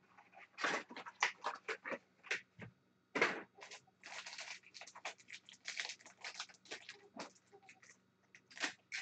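Sealed foil trading-card pack being picked up and handled, with scattered crinkles, taps and clicks.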